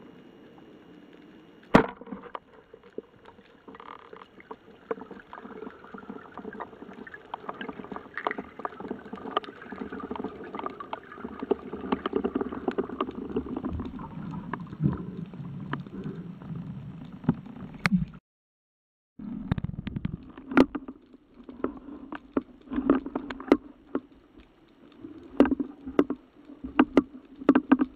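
Underwater sound of a speargun hunt: a sharp crack about two seconds in as the speargun fires, then a long stretch of clicking, scraping water noise while the speared fish is brought in. After a second of dead silence, splashing and clicks resume with the diver at the surface.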